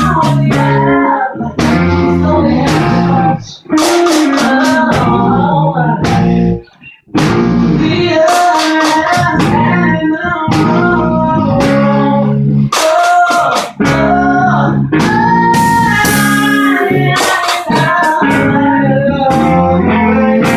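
Live band playing a song, with guitar to the fore and some singing. The band stops briefly about a third of the way through, then comes back in.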